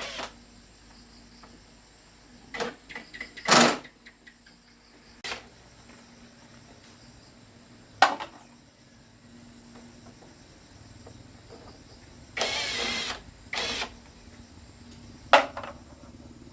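Intermittent clanks and knocks of metal tools and parts during motorbike repair work, with a short rasping burst near the end.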